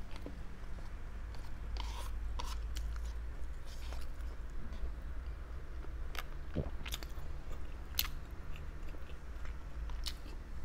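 A person chewing and biting barbecued meat, with scattered short wet smacks and clicks every second or so over a steady low hum.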